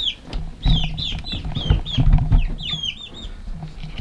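Young chickens peeping in a brooder: a quick run of short, high chirps that fall in pitch, several a second. Low thumps and rustling are mixed in, loudest around the middle.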